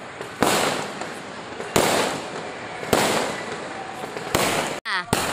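Aerial fireworks bursting overhead: four sharp bangs about a second and a half apart, each trailing off in a long echoing rumble.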